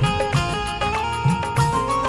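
Instrumental Bollywood melody played on a banjo, over a steady drum beat.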